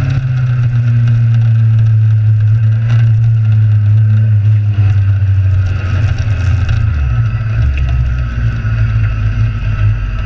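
Kawasaki Z1000 motorcycle on the move, a loud, steady low rumble of engine and riding noise. The engine note eases down slightly over the first few seconds, and the rumble drops lower about seven seconds in.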